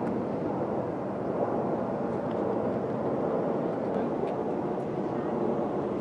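Steady outdoor hubbub of road traffic and indistinct voices, with no single sound standing out.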